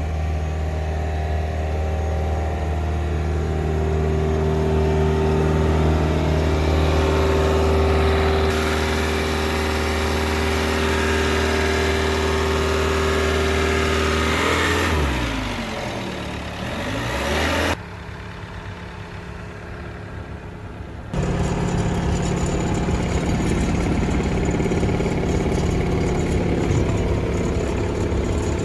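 Bobcat T66 tracked skid steer's turbo diesel engine running at high throttle, falling in pitch and rising again about fifteen seconds in. It then runs quieter at low idle for a few seconds before throttling back up sharply just past the twenty-second mark.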